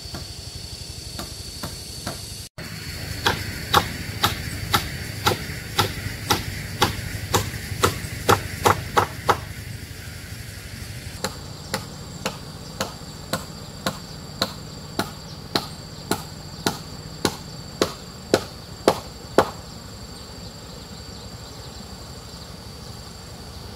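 A hand tool striking repeatedly at about two blows a second, in two runs of several seconds with a short pause between. Insects trill steadily throughout.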